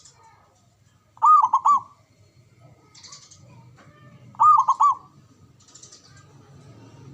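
Zebra dove (perkutut) calling: two short phrases, each a quick run of three or four arched coos, about three seconds apart.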